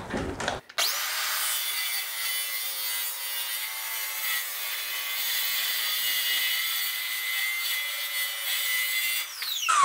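Circular saw cutting along a wooden window-sill board, starting suddenly under a second in and running as a steady high whine. Near the end the blade is released and winds down with falling pitch.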